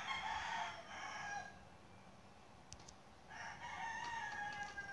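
Rooster crowing faintly, twice: one crow ends about a second and a half in, and a second, long held crow starts about three seconds in and drops off in pitch at its end.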